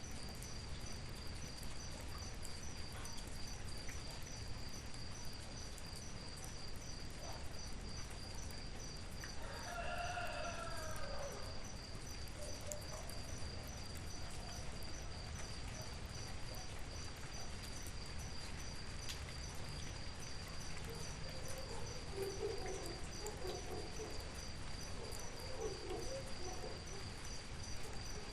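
Crickets chirp steadily in a fast, even pulse. A rooster crows once about ten seconds in, and a few softer clucking calls come near the end.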